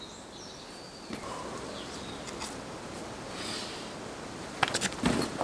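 Quiet forest ambience with faint bird chirps. Near the end, a quick run of sharp taps followed by scuffing from a boulderer moving on the rock.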